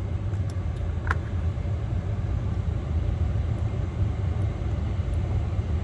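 Steady low hum of a car's engine and air conditioning running, with a few faint ticks and a short squeak about a second in.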